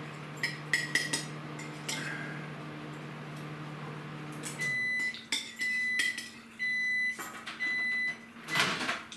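Microwave oven running with a steady hum and a few light clinks, then stopping about halfway through and beeping four times, about once a second, to signal it has finished. A louder knock follows near the end.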